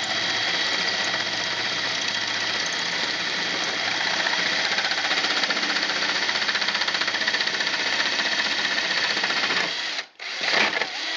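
A Morse 9/16-inch bi-metal hole saw in a drill cutting into a steel door skin under light pressure. It makes a steady grinding whine with several high ringing tones, then stops about ten seconds in.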